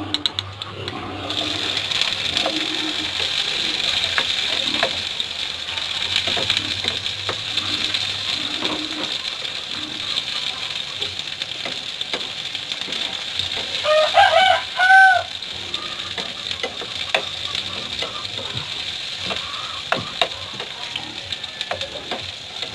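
Sliced onion and tomato sizzling in hot oil in a wok. The sizzle starts about a second in as they go into the pan, and a metal spoon clicks and scrapes against the pan as it stirs. Near the middle, a brief two-note call rises above the frying.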